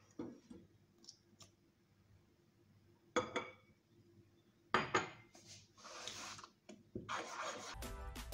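A metal spoon stirring and scraping thick pancake batter in a bowl. There are two sharp knocks about a second and a half apart before the stirring.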